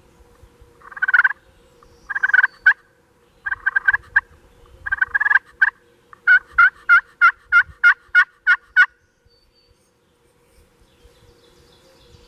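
Wild turkeys calling: four short, rapid bursts of calls about a second apart, then a run of about ten evenly spaced calls at roughly four a second, ending about three-quarters of the way through.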